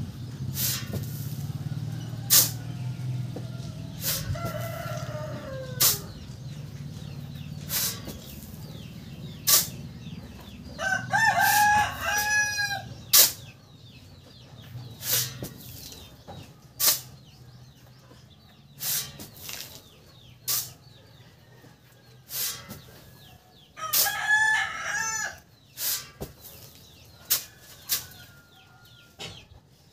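Steel shovel scraping into a sand pile and tipping out its load, a sharp stroke every second or two. A rooster crows twice, once just before the middle and once later on, each crow lasting about two seconds.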